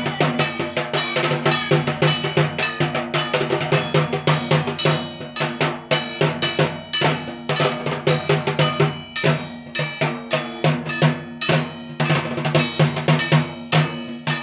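Fast, steady drumming with a bell-metal gong clanging on the beats, about five strikes a second: the dhak-and-kansor accompaniment played at a puja baran.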